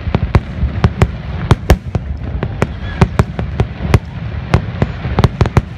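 Aerial firework shells bursting in a rapid, irregular volley of sharp bangs, about three a second, over a steady low rumble.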